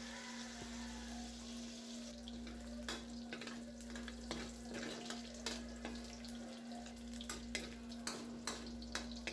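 Cubed pork sizzling in oil in a wok as it browns, while a metal spatula stirs it, scraping and clicking against the pan. The clicks come often from about two seconds in, over a steady low hum.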